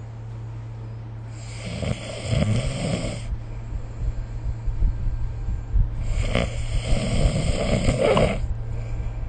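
A person snoring: two long snores, one starting about a second in and one about six seconds in, each lasting about two seconds, over a steady low hum.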